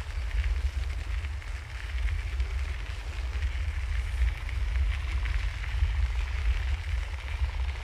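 Wind buffeting the microphone while cycling: a low rumble that gusts up and down quickly, with a faint hiss above it.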